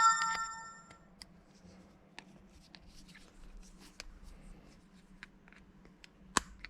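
Small clicks and scratching of a pocket screwdriver prying at the plastic case of a car key fob, with a sharper click near the end. An electronic chime of several tones fades out in the first second.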